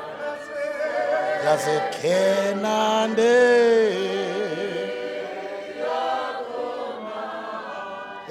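A slow isiZulu hymn sung unaccompanied by several voices together, with long held notes that slide between pitches.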